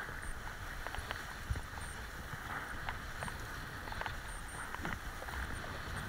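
Kiteboard riding across choppy water: a steady rush of water under the board and wind rumbling on the microphone, with scattered small knocks and slaps of chop against the board.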